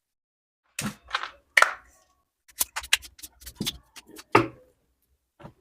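Plastic parts of a Bluetooth selfie stick with remote being handled: a couple of short scrapes about a second in, then a quick run of sharp clicks and knocks, the loudest a thunk near the end.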